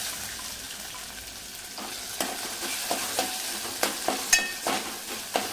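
Sliced onion sizzling in hot oil in a metal pot, being sautéed. From about two seconds in, a steel spoon stirs it, scraping and clinking against the pot several times, with one louder ringing clink near the end.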